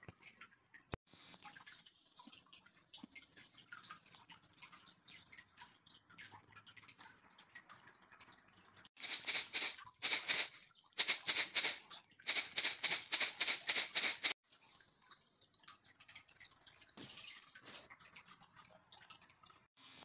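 Faint clicks and handling noise, then about nine seconds in, four loud bursts of rapid rattling over some five seconds as the plastic parts and filter of an air purifier are handled.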